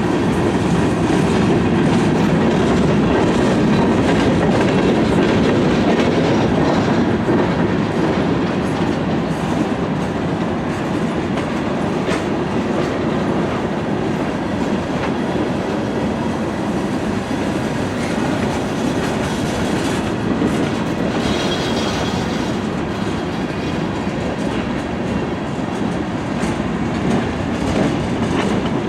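CSX manifest freight train rolling steadily, its wheels clacking over the rail joints.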